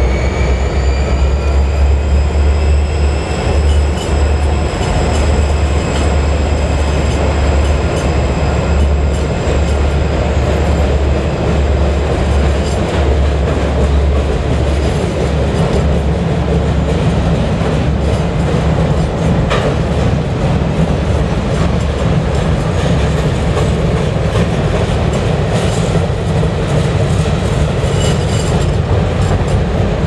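Freight train crossing a steel girder bridge: a lashup of EMD GP-series diesel locomotives passes first, with a high whine that fades out over the first ten seconds or so, then the freight cars roll by with a steady heavy rumble and clicking wheels.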